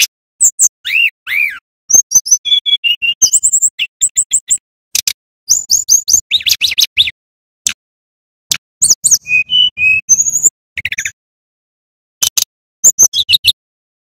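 A male fulvous-chested jungle flycatcher (sikatan rimba dada coklat) singing loudly: a fast, varied run of short high whistles, chips and down-slurred notes in bursts, broken by brief pauses.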